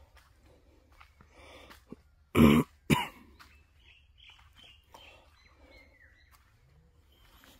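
A person coughs twice in quick succession about two and a half seconds in; the first cough is longer and louder than the second.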